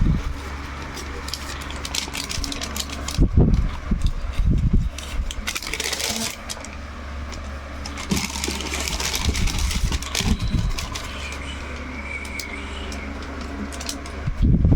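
A sneaker box and its wrapping paper being handled: quick rustling and crinkling with several dull knocks, over a steady low hum.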